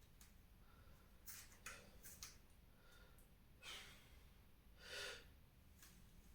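Faint sounds of a person working out: a few small clicks, then two short, forceful breaths out about a second apart, the second louder, the breathing of exertion under a kettlebell.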